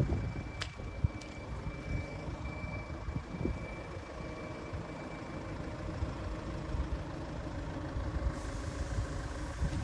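Steady low rumble of a vehicle, with a single sharp click about half a second in.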